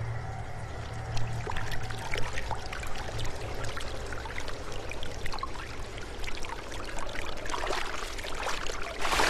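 Water sounds: running and splashing water with many small irregular clicks and drips, swelling louder just before the end.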